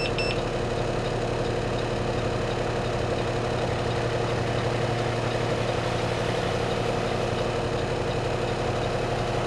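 Refuse truck engine idling steadily. Right at the start, a few short high beeps end: the blind-spot system's audible alert for a detected object.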